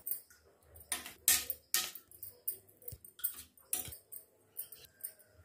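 A metal utensil stirring a thick yogurt mixture around a stainless steel plate: irregular scrapes and clicks of metal on metal, a few each second.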